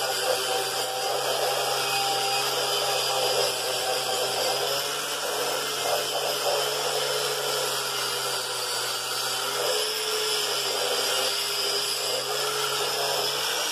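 Angle grinder fitted with a wire cup brush running steadily against the rusty metal base of a drill press stand, scouring off rust. Its motor whine wavers slightly in pitch as the brush is pressed on.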